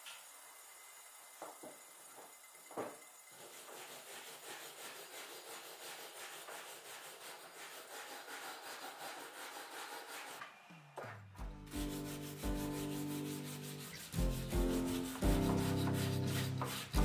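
Brisk, rapid rubbing of a rag on a wooden hammer handle, working in boiled linseed oil. Upbeat tuba music comes in about two-thirds of the way through, with the rubbing going on underneath.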